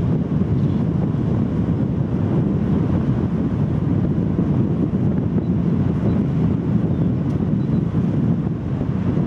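Wind buffeting the microphone: a steady low rumbling rush with no distinct tones.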